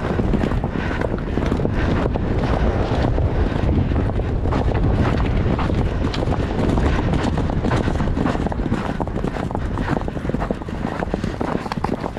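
Wind rushing over the microphone as a horse gallops across grass, with its hoofbeats coming in a regular rhythm under the wind.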